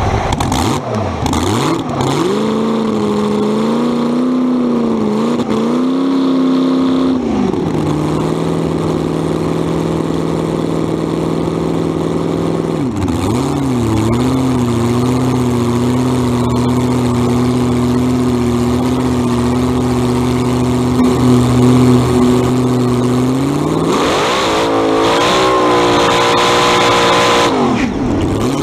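Supercharged alcohol-burning big-block Chevy V8 of a front-engine dragster running, heard from the driver's seat. It idles with several quick throttle blips in the first half, holds a steady idle, then revs higher for a few seconds near the end.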